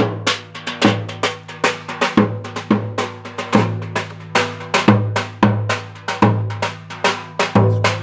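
Davul, the large Turkish double-headed bass drum, played solo in a lively folk rhythm. Deep booming strokes come about every two-thirds of a second, with quicker, lighter, sharper strokes in between.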